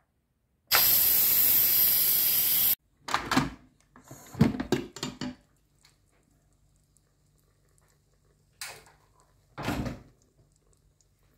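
Instant Pot's steam release valve opened after pressure cooking: a loud hiss of escaping steam for about two seconds that cuts off sharply. Then a run of clunks and knocks as the metal lid is turned and lifted off, and two more short knocks near the end.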